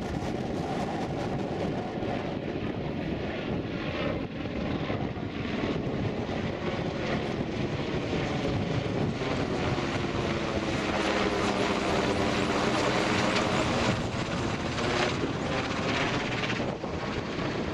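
AgustaWestland AW101 Merlin helicopter flying low overhead: the engines and rotor noise grow louder, are loudest about two-thirds of the way through as it passes close overhead with a sweeping, phasing sound, then ease off a little as it moves away.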